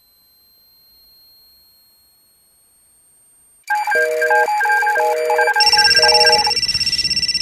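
Mobile phone ringing: after a faint high whine, a quick tune of electronic beeps starts about halfway through, followed by a rapid pulsing high-pitched ring over a low buzz.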